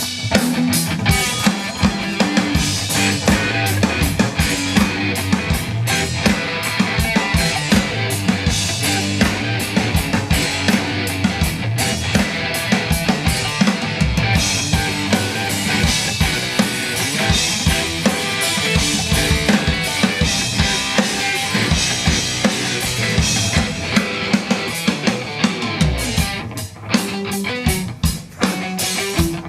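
Loud rock music with a drum kit to the fore, kick and snare hitting in a steady beat over a dense band sound, briefly dropping out twice near the end.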